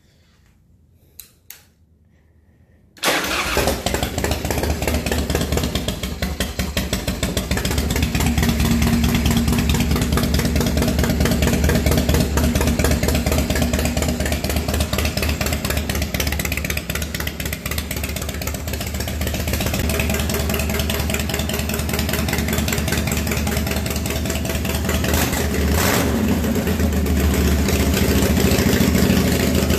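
1992 Harley-Davidson Heritage Softail's 80-cubic-inch Evolution V-twin, freshly fitted with an Andrews EV13 cam, starting up about three seconds in after a couple of small clicks, then running with a steady loping beat through its torque-cone exhaust.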